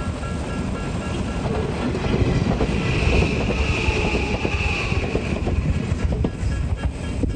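A train passing close by over a level crossing: a loud rumble and clatter of wheels on rails, with a high squeal for about two seconds midway. The crossing's warning bell rings faintly at the start and again near the end.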